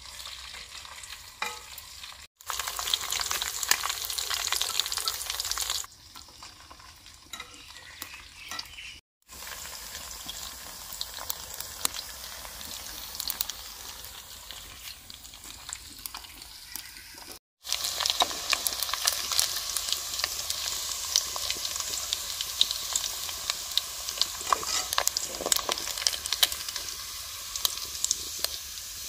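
Chicken pieces deep-frying in hot oil in a kadhai: a steady sizzle full of sharp crackles and pops. The sizzle jumps louder or quieter at a few abrupt cuts.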